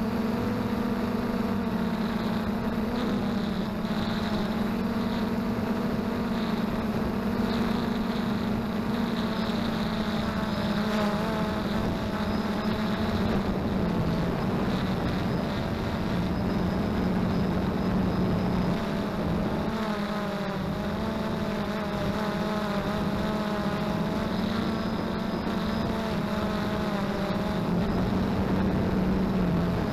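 XK Detect X380 quadcopter's motors and propellers humming steadily in flight, the pitch wavering slightly as the motors adjust, with a low rumble of wind on the microphone.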